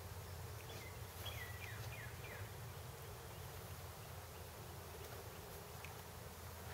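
Faint, steady buzzing of honeybees loose from a freshly shaken package, disturbed after being knocked down into the hive. A few short, high, falling chirps come in the first couple of seconds and once more later on.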